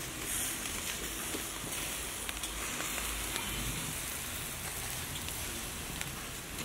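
Meat rolls on steel skewers sizzling over hot charcoal, an even hiss with a few small crackles of fat.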